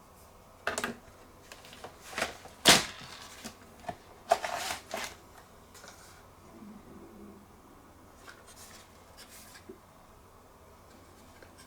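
Hand-handling noises of a laptop under repair: a few sharp plastic clicks and snaps, the loudest a few seconds in, and a short scrape, as parts of the DVD drive bay are worked on. It then quietens to a few faint ticks.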